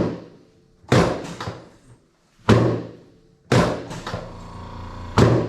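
Chiropractic drop table's raised pelvic section slamming down under the adjuster's thrusts as the tailbone and pelvis are adjusted. There are five sharp thuds, roughly one every second, each ringing briefly. A faint steady hum runs beneath them from about halfway.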